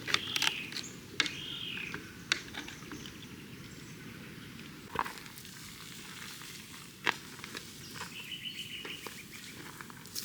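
Birds calling: a few arched chirps in the first second and a short trill about eight seconds in, over a steady outdoor hiss, with scattered sharp clicks and taps.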